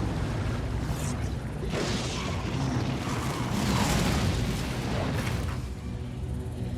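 Animated film soundtrack: a dramatic score over deep booms and several rushing surges of effects noise, easing off near the end to sustained low notes.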